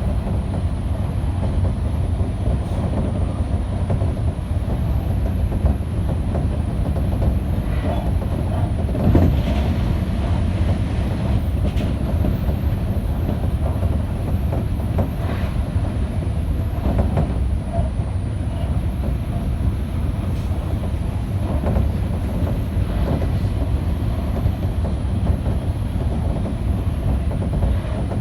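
Odakyu electric train running along the track: a steady low rumble with occasional knocks from the wheels.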